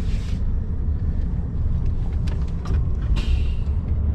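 Heavy truck's diesel engine running with a steady low rumble, heard from inside the cab. A few light clicks are followed by a short hiss about three seconds in.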